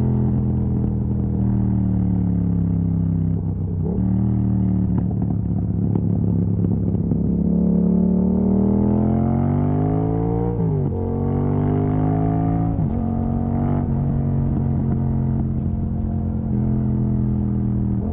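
Yamaha MT-07 parallel-twin engine through an open exhaust with the dB killer removed, easing off at first, then pulling up through the revs and snapping down in pitch on two quick upshifts about two seconds apart, after which it holds a steady cruise.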